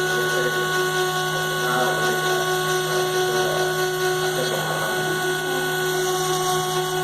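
CNC router running steadily while cutting, its spindle giving a constant hum and whine over the cutting noise.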